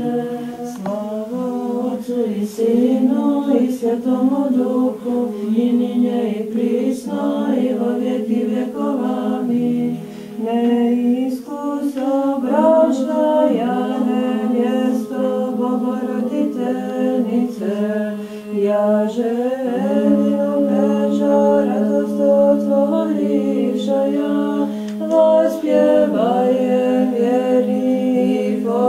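Unaccompanied choir singing an Orthodox chant, a low note held steady beneath a moving melody, with brief pauses about ten and eighteen seconds in.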